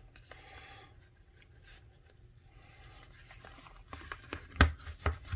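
Cardstock rustling and a bone folder scraping along the fold of a paper book cover as its spine is rounded. A few sharp knocks come near the end, the loudest about a second before it finishes.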